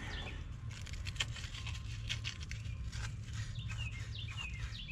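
Very fine sandpaper scratching in short irregular strokes on a battery cable terminal clamp, cleaning off corrosion, over a low steady hum. A few short, high, falling chirps come near the end.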